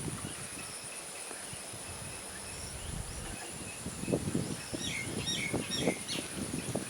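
Outdoor natural ambience: a steady high insect drone runs throughout, and a small bird gives a quick series of short chirps about five seconds in. Low irregular rustling bumps come in during the second half.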